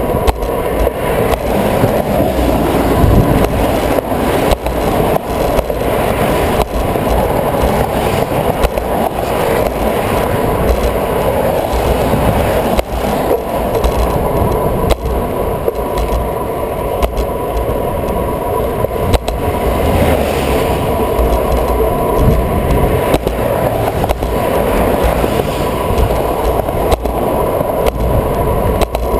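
Wind buffeting a handlebar-mounted camera on a moving road bike, with a continuous low rumble and frequent small rattles from the bike and mount over the pavement. A steady tone runs underneath.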